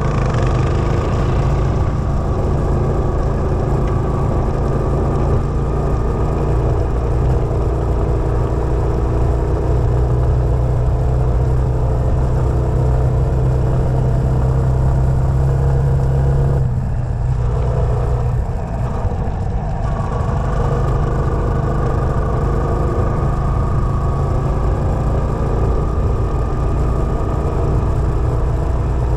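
Quad bike engine running steadily while riding a gravel track. It eases off briefly a little past halfway, then picks up again.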